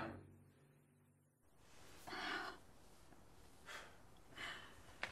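Faint gasping breaths, a few in the space of about three seconds, after a second of dead silence.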